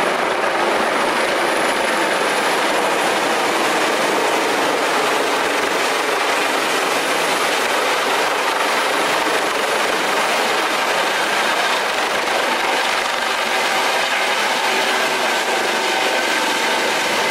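Helicopter coming in to land, its turbine and rotor noise a loud, steady rush.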